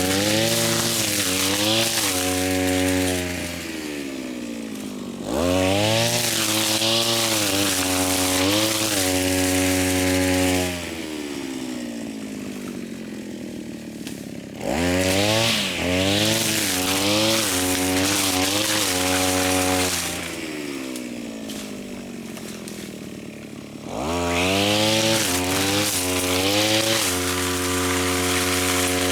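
Small petrol engine of a grass cutter, alternately revved high and cutting thick grass with a hissing swish on top, then dropped back to idle. There are four spells at high revs, with the pitch wavering as the engine labours under the grass, separated by idle spells of about four seconds.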